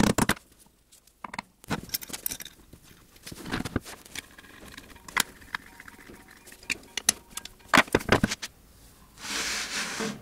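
Steel milling vise being taken apart by hand: scattered metal clicks and knocks as tools and parts meet, with a hex key working the cap screws. A steady scrape lasts about a second near the end.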